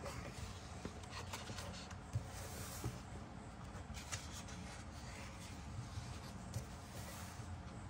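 Faint rustling and sliding of paper as a coloring book's pages are handled and turned, with a few soft taps.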